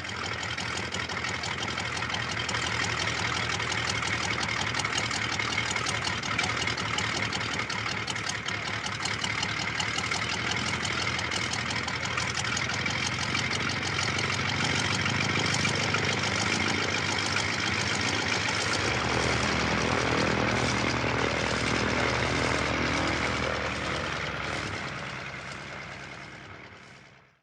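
Fokker Dr.I triplane's propeller engine idling, then taxiing away. The engine note shifts about two-thirds of the way through, and the sound fades out over the last few seconds as the plane moves off.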